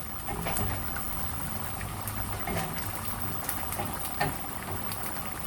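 Onions frying in hot oil as they are cooked toward brown: a steady sizzle with scattered small crackles and pops.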